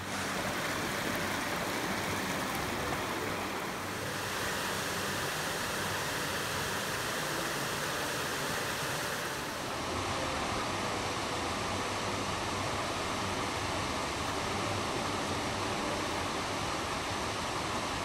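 Steady rush of flowing water: a rocky stream pouring through a channel in granite, then a small cascading waterfall. The tone of the rush shifts twice, about four and about ten seconds in.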